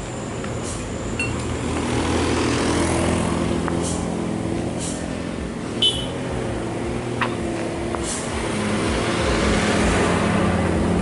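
Motor vehicle engine running steadily, swelling a little twice. A short sharp sound about six seconds in.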